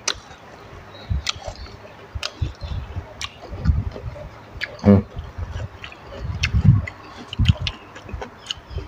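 Close-up wet chewing and lip-smacking of a mouthful of rice noodles in thick curry sauce, with many sharp mouth clicks. A short hummed "mm" about five seconds in.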